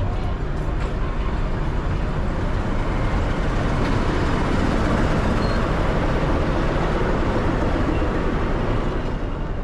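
Nilgiri Mountain Railway train pulling into the station: a steady running noise that grows to its loudest about halfway through, then eases slightly.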